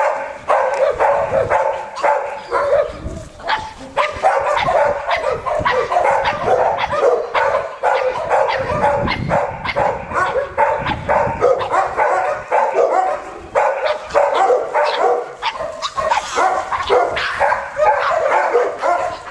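Dogs barking in a rapid, continuous string of short calls.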